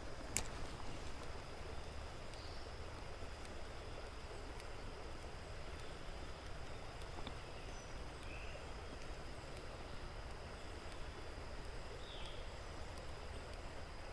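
Creek ambience: an even rush of running water, with a steady high insect whine and a few short bird chirps scattered through it.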